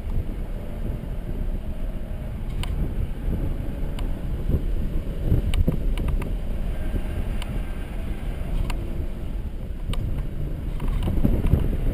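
Mercedes-Benz C300 4MATIC driven at speed on a wet track: engine running under load with steady road and tyre noise, its pitch gliding up and down with speed, and a few brief sharp clicks along the way.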